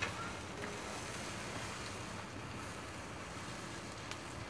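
Fire burning through a model tractor built of matchsticks: a steady rushing roar of flames with a few sharp crackles, one near the start and one near the end.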